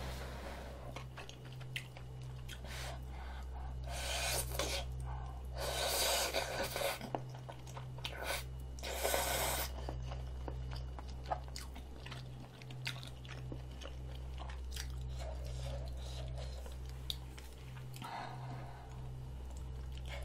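Close-miked eating of rabokki ramen noodles: wet chewing and mouth clicks throughout, with three louder noodle slurps about four, six and nine seconds in. A steady low electrical hum runs underneath.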